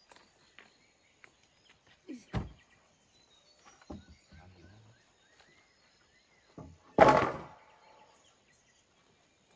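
A few separate knocks and thuds against a quiet outdoor background. The loudest is a sharp hit about seven seconds in that rings briefly.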